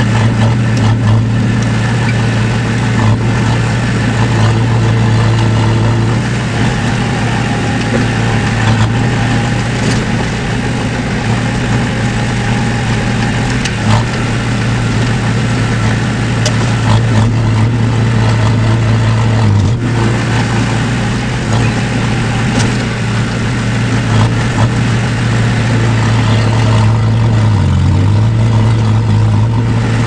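Crawler dozer's diesel engine running steadily under load, heard from inside the cab. Its note briefly dips and rises near the end.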